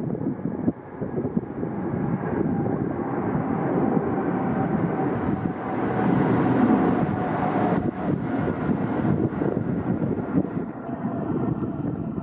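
Jet engines of a passenger airliner climbing after takeoff, heard as a steady rumbling roar with a faint whine in it. The roar swells to its loudest about halfway through.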